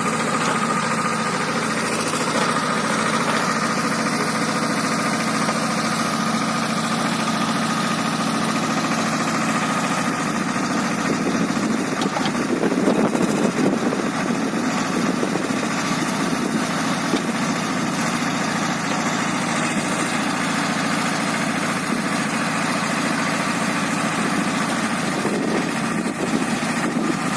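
Swaraj 724 XM tractor's diesel engine running steadily, with a thin steady whine above it; about twelve seconds in it grows louder and rougher for a couple of seconds before settling back.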